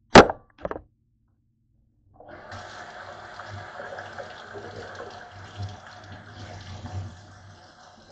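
A sharp knock and a lighter one just after, then, about two seconds in, a steady rushing like water running from a tap starts and goes on for about six seconds before stopping near the end.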